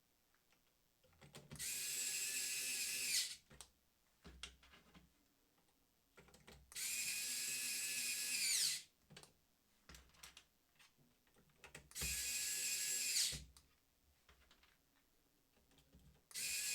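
Parkside PASD 4 C3 4 V cordless electrician's screwdriver driving terminal screws. Its small motor whines in four separate runs of one to two seconds each, and the pitch drops as a screw seats. Faint handling clicks come between the runs as the bit moves from screw to screw.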